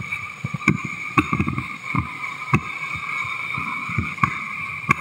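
Rushing whitewater from a raft running river rapids, a steady hiss, with about five sharp knocks and many muffled low thumps from paddling in the raft.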